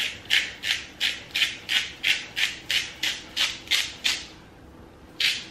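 Handheld spice grinder twisted over a pot, grinding with a dry rasp in even strokes about four a second. It stops about four seconds in, then starts again briefly near the end.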